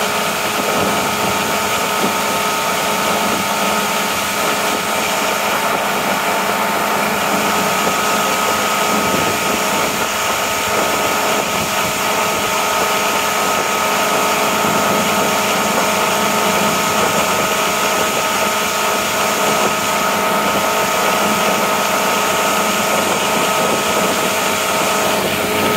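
Motorboat engine running steadily at towing speed, a constant whine over an even rush of wake water.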